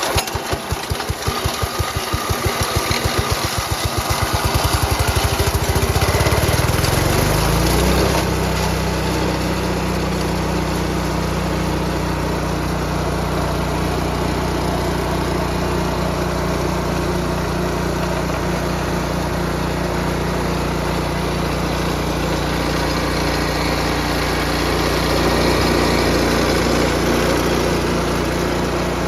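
Kyoritsu Echo HK-510S shredder-chipper's 5 hp engine running with no load: its firing speeds up over the first eight seconds, then it holds a steady speed.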